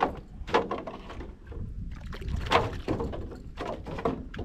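Scattered knocks and clatter aboard a small fishing boat, over a steady low rumble.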